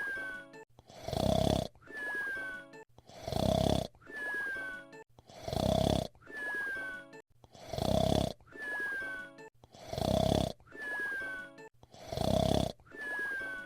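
Cartoon whistle-snore of Fred Flintstone: a loud rasping snore on the in-breath, then a thin whistle falling in pitch on the out-breath. The cycle repeats evenly about every two seconds, six times.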